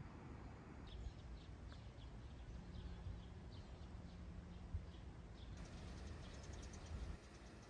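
Small birds chirping, a few short calls a second, breaking into a faster, higher twittering near the end, over a steady low background rumble.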